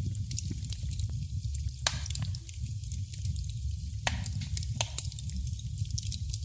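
Wood fire crackling in a fireplace: irregular sharp pops and snaps over a steady low rumble of flame, with louder pops about two and four seconds in.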